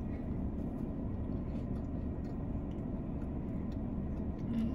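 Steady low rumble of a car running, heard inside the cabin, with faint soft chewing of a cookie.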